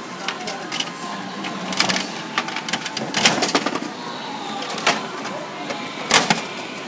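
Gashapon capsule-toy machine's crank being turned, giving a series of mechanical clicks and clunks.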